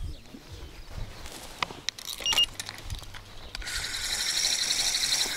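A few handling clicks, then a single short electronic beep from a carp bite alarm about two seconds in. From a little past the middle, a fishing reel is wound steadily with a fast, even whirring rattle as a hooked fish is reeled in.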